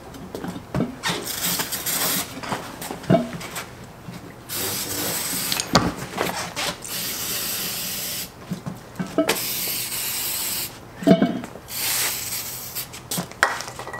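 Aerosol can sprayed into the bead of a go-kart tire in several long hissing bursts of a second or two each, with a few light knocks between them.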